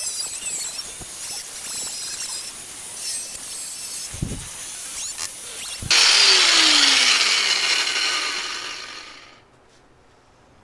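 Angle grinder with a cut-off wheel cutting through the rusty sheet-steel fender of a 1977 Chevy C10 truck, a steady high whine. About six seconds in it comes out of the cut and runs louder, then winds down with a falling pitch and stops about three seconds later.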